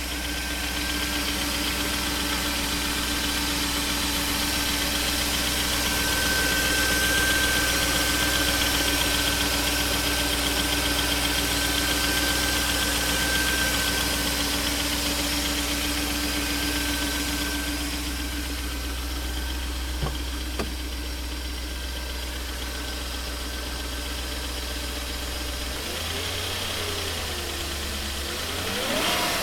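BMW M60B40 4.0-litre V8 idling on a cold start with an abnormal noise, which the owner says doesn't sound good and goes away after one to two minutes of warming up. Two sharp clicks come about 20 seconds in; near the end the idle note shifts and the engine is briefly revved.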